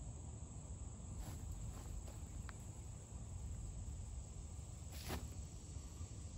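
Dry, spongy water oak punk wood being pulled apart by hand, giving a few faint soft crackles and then a louder tearing crackle about five seconds in. Steady insect chirring and a low rumble lie underneath.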